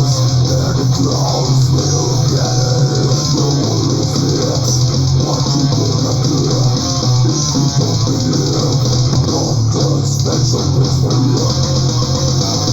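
Death/thrash metal recording: distorted electric guitars and bass guitar playing a continuous riff.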